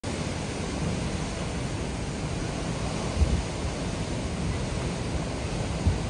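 Hurricane eyewall winds blowing with a steady rushing noise, with gusts buffeting the microphone in low thumps, strongest about three seconds in and again near the end.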